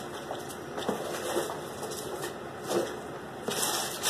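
Paper pages rustling as they are handled and leafed through: a few soft rustles, then a longer rustle near the end.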